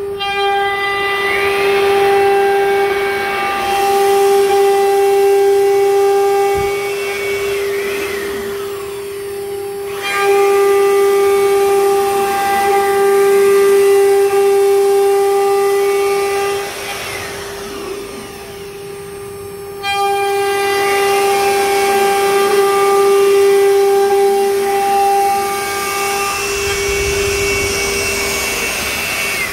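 CNC wood router running, its spindle giving a steady high whine while the cutter routes grooves into a board. Shorter whines rise and fall above it as the gantry's drive motors move the head, and the whole sound dips briefly every few seconds.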